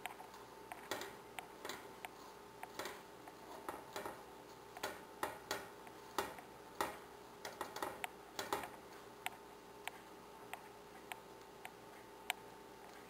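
Wooden spatula knocking and scraping against a stainless steel pot while shredded cabbage and ground meat are stir-fried: irregular light clicks, thinning out over the last few seconds.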